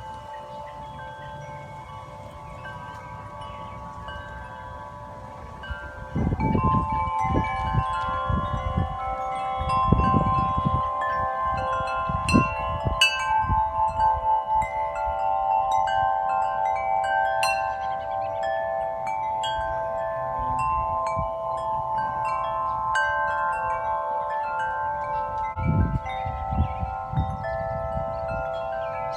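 Several large tubular wind chimes ringing in gusty wind, their tones struck over and over and overlapping. The ringing swells louder about six seconds in as a gust picks up, with wind rumbling on the microphone in places.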